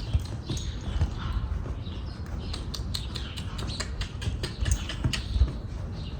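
Horse's hooves stepping on the ground in irregular knocks, over wind rumbling on the microphone.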